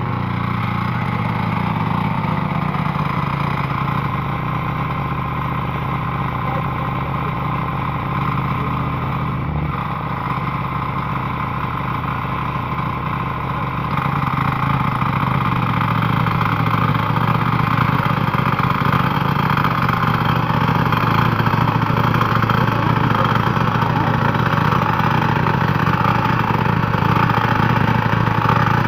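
Walk-behind power tiller's small engine running steadily as the machine tills soil. It gets louder about halfway through and stays louder.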